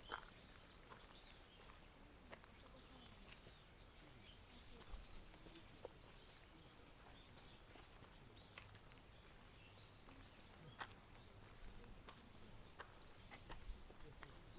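Very quiet outdoor ambience with faint, scattered bird chirps and a few soft clicks.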